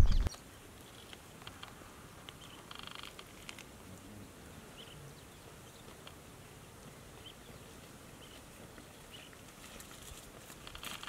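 Quiet outdoor field ambience with a few faint, brief high chirps. Near the end, a soft rustle starts as footsteps brush through leafy crop plants.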